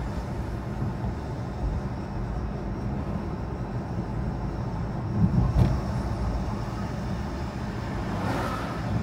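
Car driving along a road: a steady low engine and tyre rumble, with a short jolt about five seconds in and a brief rushing swell near the end.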